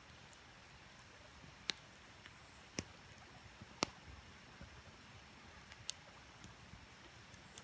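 Wood campfire crackling softly, with a few sharp pops a second or so apart over a faint steady hiss from the creek.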